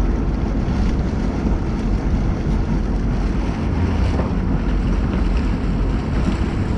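Steady wind rumble on the microphone, with sea water washing along the hull of a fishing boat.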